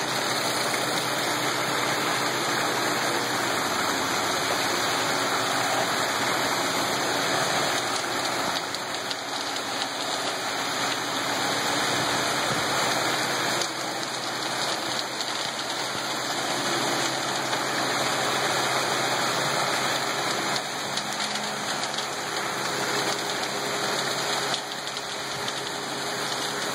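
Wet concrete sliding down a ready-mix truck's chute and spreading into the slab form, a steady rushing pour, with the mixer truck's engine humming steadily underneath.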